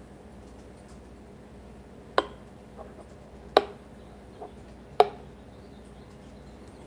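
Three light clinks about a second and a half apart, with fainter ticks between, as a stainless steel milk pitcher pours steamed milk into a ceramic cup, over a low steady hum.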